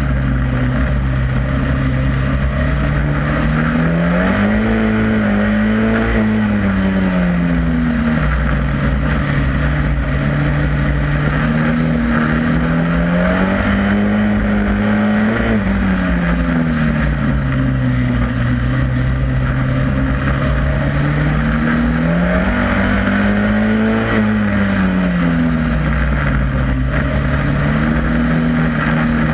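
Superstox racing stock car engine heard on board at racing speed, its pitch climbing as the car accelerates and dropping back as it lifts off, repeating every eight to ten seconds.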